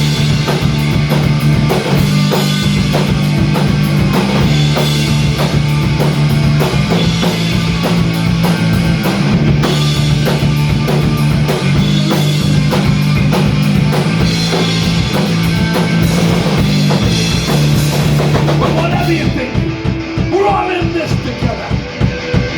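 Live punk rock band playing an instrumental break: distorted guitar, bass and drum kit keeping a steady beat. About 19 seconds in, the cymbals and full band drop out, leaving sparser separate notes.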